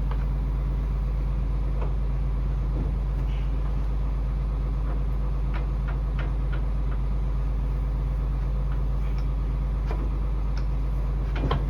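Tractor engine idling steadily, with a few faint light clicks over it.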